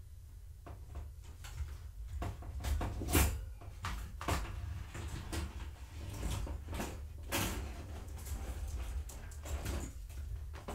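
Irregular knocks, clatters and rustling of things being handled and moved about, the loudest knock about three seconds in, over a steady low hum.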